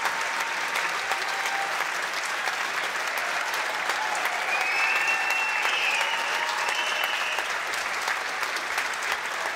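Large audience applauding steadily, a dense patter of many hands clapping. About halfway through, a brief high-pitched call or whistle rises from the crowd.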